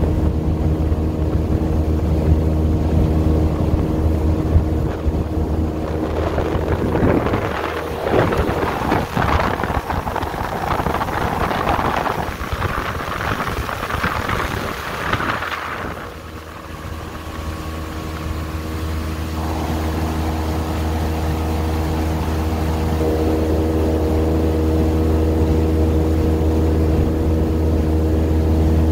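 Outboard motor running steadily at cruising speed, driving an aluminium jon boat. From about six seconds in until about sixteen seconds, a rushing noise of wind and wake water rises over the engine, then drops away.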